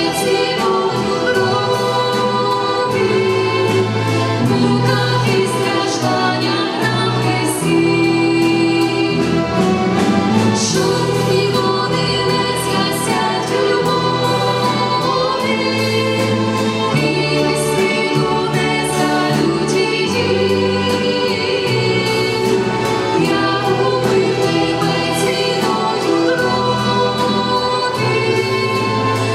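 Church choir singing a hymn with an orchestra accompanying, continuous and full.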